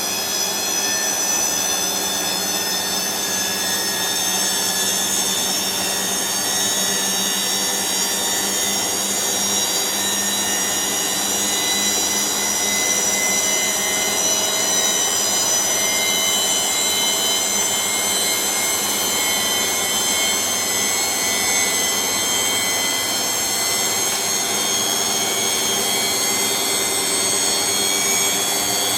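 Bosch MAXX 6 Express front-loading washing machine spinning at high speed. It gives a steady rushing run with a motor whine that climbs slowly in pitch as the drum speeds up toward its 1400 rpm spin.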